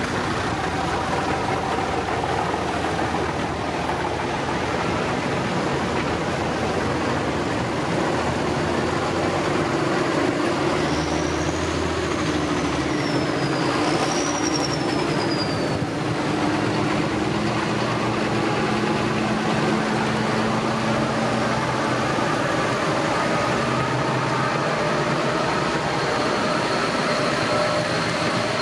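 Large farm tractors driving past one after another, their diesel engines running steadily, with a brief high whine that rises and falls about halfway through.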